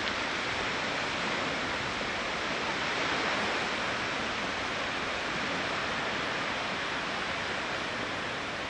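Steady rushing noise of wind and surf on an open sandy beach, even throughout with no separate events.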